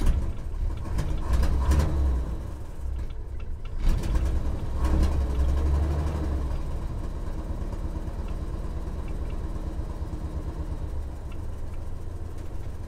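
1964 Chevy C10's Chevrolet 230 straight-six with glass-pack exhaust, heard from inside the cab: the engine is revved lightly twice, then settles into a steady low idle while still warming up.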